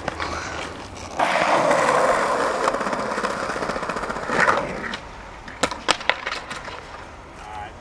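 Skateboard wheels rolling over paving tiles with a loud, rough grind for about four seconds. Then come a few sharp clacks of the board hitting the ground as the rider bails and the board rolls off without him.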